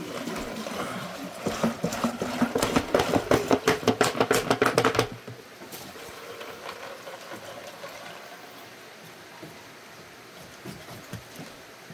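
Grapefruit juice glugging out of a bottle into a large plastic jug of ice: a fast, even run of glugs for about five seconds, then much quieter.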